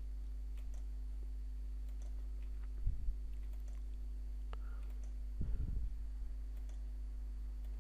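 Faint, scattered computer mouse clicks over a steady low electrical hum, with a couple of soft low thuds about three and five and a half seconds in.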